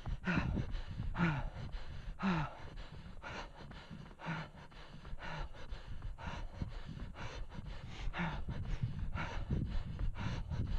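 A runner breathing hard, with gasping exhales about once a second, over the steady patter of running footsteps on dry forest floor; both ease a little a few seconds in, then pick up again.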